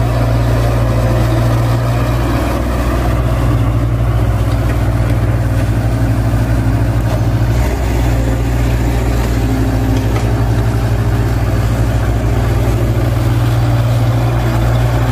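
Diesel engines of crawler excavators running steadily as they dig pond mud, a constant low drone with no breaks.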